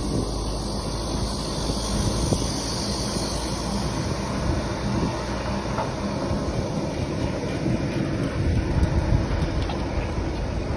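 Steady road and wind noise from a moving bicycle: tyres running on asphalt and wind on the microphone, with a few faint clicks.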